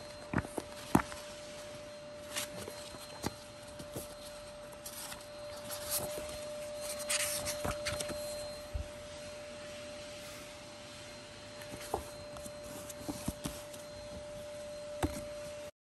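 Pages of a paperback book being handled and turned: paper rustling, loudest a few seconds in, with a scatter of light taps and clicks from fingers on the paper and covers. A faint steady hum sits under it throughout.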